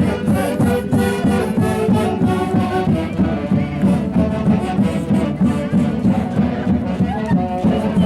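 An orquesta playing lively traditional Andean festive music for Santiago, with wind instruments carrying the melody over a steady beat.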